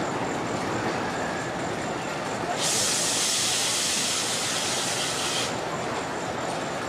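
Volcano the Blast Coaster's volcano-top fire effect firing: a hiss starts suddenly about two and a half seconds in, holds for about three seconds, then cuts off sharply, over a steady rushing background.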